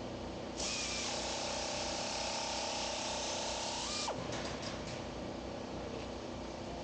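An electric power tool cutting a small piece of sheet steel in half. It runs under load for about three and a half seconds with a steady motor tone under a harsh hiss, speeds up as the cut finishes, then winds down. Light clicks of handling the metal pieces follow.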